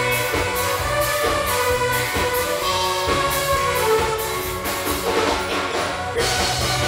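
Live band dance music with sustained instrumental notes over a steady beat.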